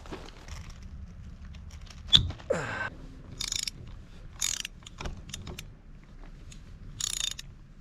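Metal hand tools being handled: a sharp clink with a short ring about two seconds in, scattered clicks, and a few short rasping bursts typical of a ratchet wrench being worked.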